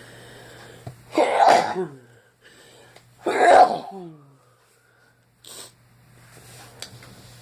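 A person sneezing loudly twice, about two seconds apart, each sneeze trailing off in a falling voiced tail, set off by an allergic irritant.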